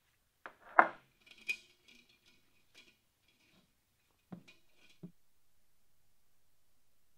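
Metal wire clinking and scraping against the ear of a cast iron pot as it is threaded through and bent into a handle. A handful of sharp metallic clicks with a light ring, the loudest a little under a second in and the last two around four and five seconds in.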